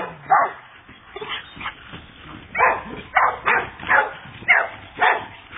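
A dog barking excitedly in short, high yips, a few spaced out at first, then a quicker run of about six over the last three seconds.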